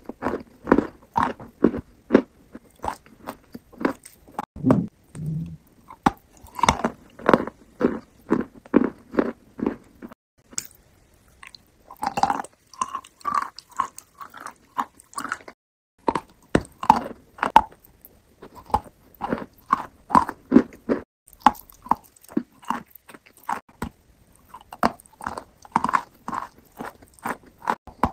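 Close-miked chewing and biting of a soft, creamy pale-green dessert, in quick runs of mouth strokes with short pauses about ten and sixteen seconds in.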